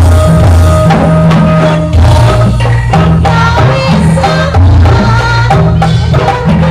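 Loud kuda lumping (jaran kepang) accompaniment music: fast drumming and struck percussion over steady held notes and a deep bass line.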